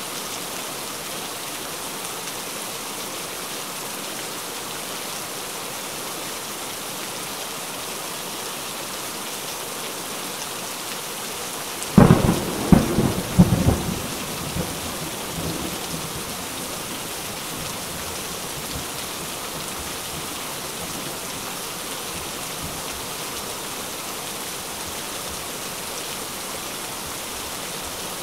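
Steady rain, broken about twelve seconds in by a sudden clap of thunder: several sharp cracks over a couple of seconds that rumble away over a few more.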